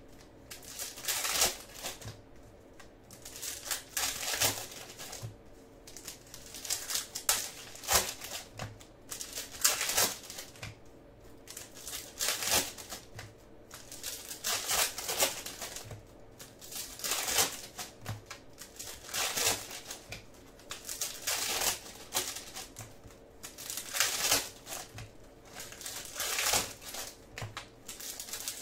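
Baseball card pack wrappers being torn open and crinkled by hand, in irregular rustling bursts every second or two.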